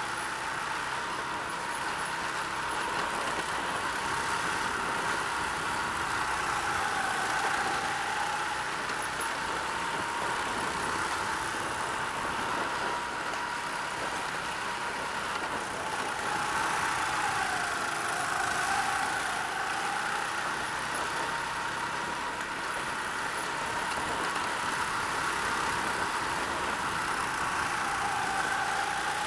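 Go-kart engine running hard through a lap, heard from the driver's seat: a steady high engine note that dips briefly in pitch about three times as the throttle eases, then climbs back.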